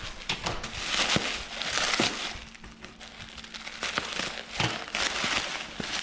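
Packing material crinkling and rustling as it is handled and pulled out of a box, in several swells with small clicks and knocks.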